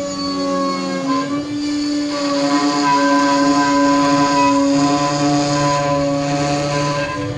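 CNC router spindle running at 18,000 rpm with a steady high whine while its 1/2-inch upcut spiral bit pockets end-grain larch at 100 inches per minute; the hiss of the cut grows louder about two seconds in.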